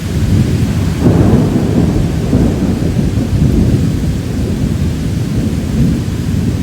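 Thunder rolling in a sudden thunderstorm: a long, loud low rumble that swells about a second in and keeps rolling, with rain falling.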